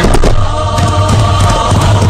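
Background music: a song with a chanting sung vocal holding long notes over a steady low bass.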